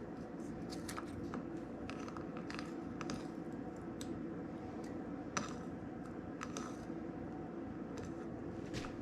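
Scissors snipping through pieces of onion in irregular short cuts, about two a second, one sharper snip a little past the middle, over a steady low hum.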